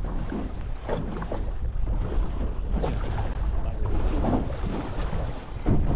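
Wind rumbling on the microphone aboard a fishing boat at sea, a steady low roar with faint, indistinct sounds over it.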